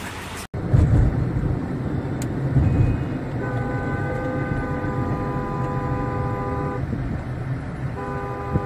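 A car horn sounds in one long blast of about three seconds, then starts again near the end, over the low rumble of a car driving at highway speed, heard from inside the car.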